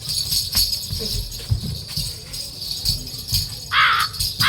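Steady jingling like small bells, with soft low thumps under it. Near the end, two harsh cawing calls cut in.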